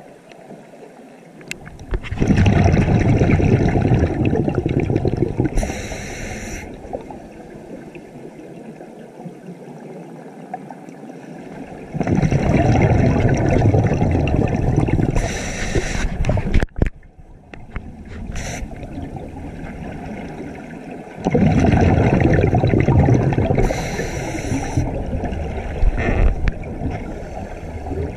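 Underwater scuba breathing through a regulator: three long bursts of bubbling exhalation, each joined by a short hiss of inhalation, with quieter pauses between breaths. A single sharp click about two-thirds of the way through.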